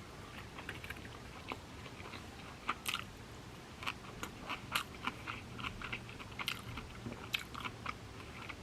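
A person chewing sushi close to the microphone: irregular wet mouth clicks and smacks, a few a second.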